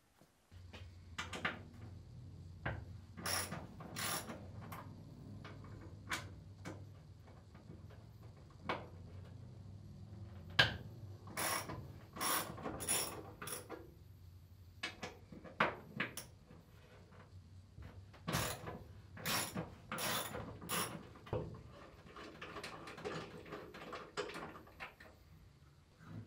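Hand socket ratchet clicking in short runs as bolts are worked, with scattered sharp metal clicks and knocks from the tool and fittings.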